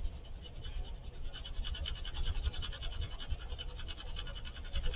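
Graphite pencil held on its side, shading on drawing paper: rapid back-and-forth strokes making a steady, rhythmic scratching.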